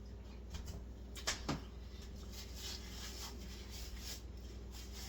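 A person eating a sauced chicken wing: scattered small clicks and mouth noises, with two sharper sounds close together about a second and a half in, over a steady low hum.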